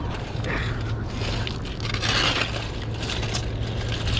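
Rusted metal folding-cot frame dragged up and over a concrete canal bank, scraping and clanking against the concrete and gravel, with a longer, louder scrape about two seconds in.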